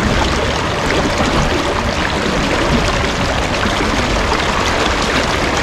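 Steady rush of flowing creek water, an even hiss with no breaks.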